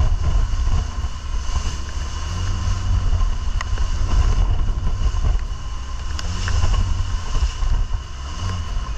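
A 150 hp outboard motor runs at speed, driving a small boat through rough seas. A heavy low rumble sits under the rush of the churning wake and spray.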